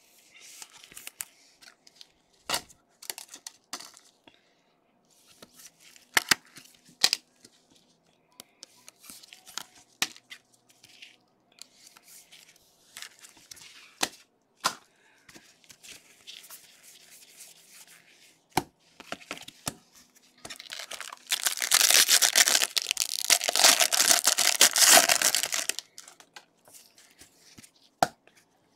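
Gloved hands handling trading cards and plastic card sleeves, with scattered light clicks, taps and crinkles. About 21 seconds in comes a loud tearing and crinkling that lasts about five seconds as a Bowman Jumbo pack wrapper is ripped open.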